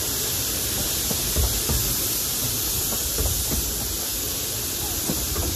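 Steady steam hiss from a 15-inch-gauge steam locomotive as its train of coaches rolls slowly past, with irregular low knocks from the coach wheels on the track.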